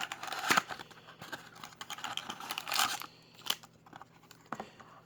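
Plastic wrapping on a trading-card box being torn open and crinkled, dense for the first three seconds or so, then a few light clicks and rustles.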